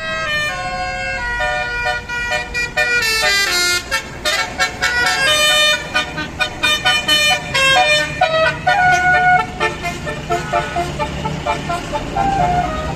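Basuri multi-tone telolet bus horn playing a tune: several pitches sounding together and stepping from note to note, with quick short notes in the middle and longer held notes near the end.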